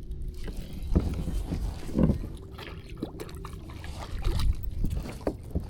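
Irregular knocks and scrapes of handling in a kayak, with some water sloshing and a brief low pitched sound about two seconds in.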